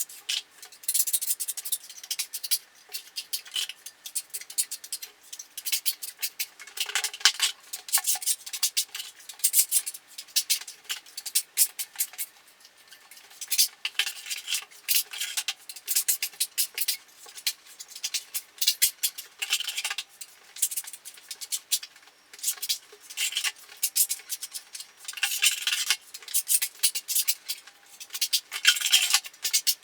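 Steel putty knife scraping and spreading wall filler in repeated short strokes, a rough, high scratching, with a short pause about halfway through.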